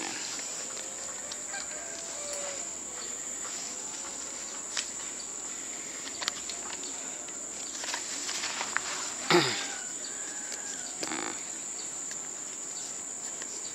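Steady high-pitched insect drone with a few short clicks, and one brief, loud falling animal call about nine seconds in.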